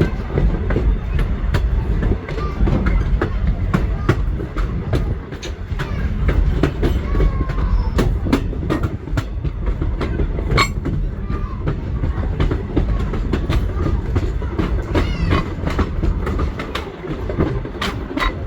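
Passenger train rolling along the track: a steady low rumble with repeated clicks of the wheels passing over rail joints.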